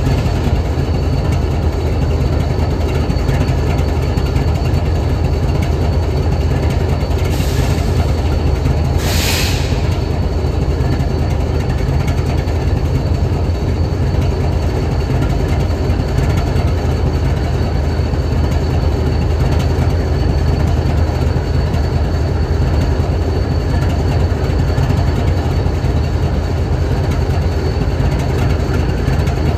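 BNSF 7876 diesel-electric locomotive idling: a steady, even low engine rumble. Two short hisses come a couple of seconds apart, about a quarter of the way in.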